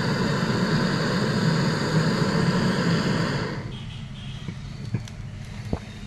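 Twin-hose gas brazing torch flame hissing steadily while it heats a copper pipe joint. The hiss stops abruptly about three and a half seconds in, and a couple of faint clicks follow.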